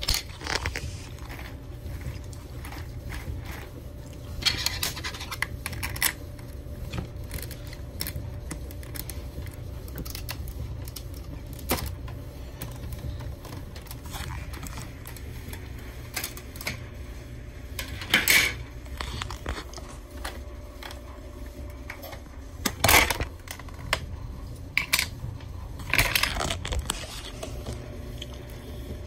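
Plastic LEGO parts of a LEGO vacuum engine clicking, scraping and rattling irregularly, with a few louder scrapes, over a steady low hum.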